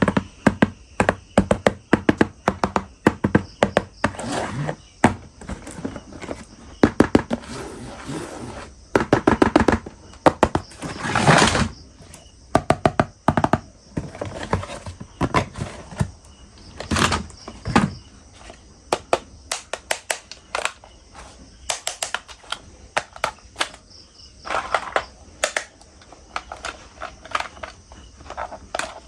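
Hard plastic toy vehicles knocking and clattering as they are handled and cleaned: many irregular sharp knocks, with a couple of short stretches of rapid rattling or scrubbing about ten seconds in.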